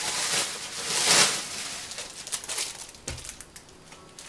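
Clear plastic packaging crinkling and rustling as a notebook is unwrapped, busiest in the first second and a half. A light knock about three seconds in as a notebook is set down on the table.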